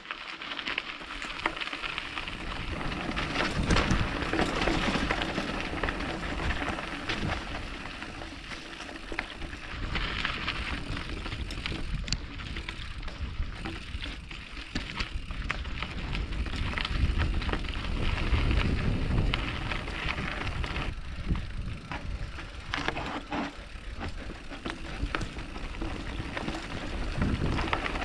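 Mountain bike riding down a dirt forest trail: tyres rolling and crunching over dirt, roots and stones, with many short rattles and knocks from the bike and a constant low rumble.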